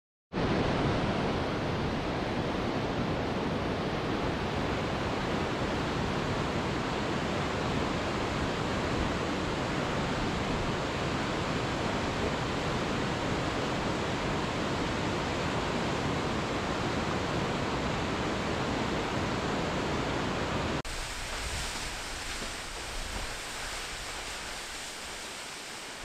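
Waterfall rushing in a steady, even roar. About 21 seconds in it changes abruptly to a quieter, higher-pitched rush of falling water.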